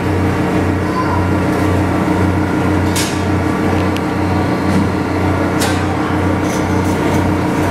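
Ueno Zoo suspended monorail car standing at the platform, its equipment giving a steady low electrical hum that pulses about three times every two seconds, with two short hisses.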